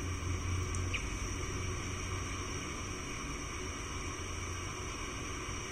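Room tone: a steady low hum and hiss with a faint high-pitched whine, and a couple of faint ticks about a second in.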